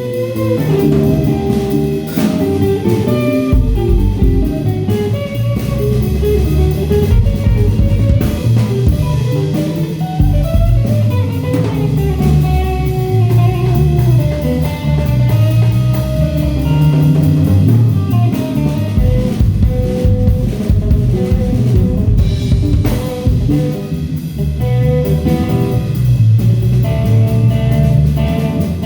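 Band music: a guitar playing a melodic lead line over bass and a drum kit, in a blues-jazz style.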